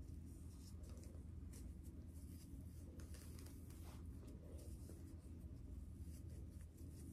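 Faint scratchy rustling of hair being twisted and braided by hand, over a low steady hum.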